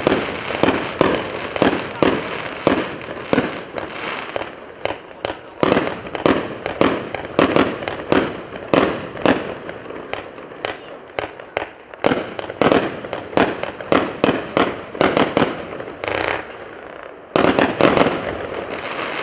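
A 150-shot, 0.8-inch consumer fireworks cake firing shot after shot, about two sharp reports a second. After a brief lull near the end, a louder, denser volley goes off.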